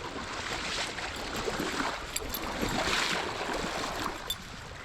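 Trout stream water running in a steady rush, with a few light ticks.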